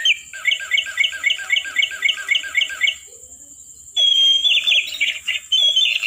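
Toy parrot playing electronic bird squawks through its small speaker: a fast run of identical chirps, about four a second, for nearly three seconds. After a short pause comes a second, higher run of squawks.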